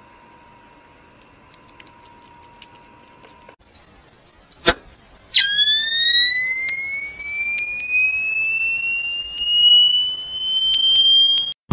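A faint steady hum, then a sharp click, then a loud electronic charging whine that rises steadily in pitch for about six seconds and cuts off suddenly.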